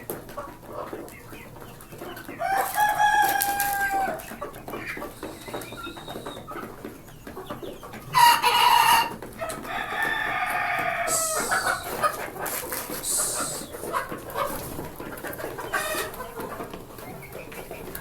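Desi chickens clucking, with roosters crowing in long drawn-out calls, three times: a little over two seconds in, about eight seconds in, and again straight after.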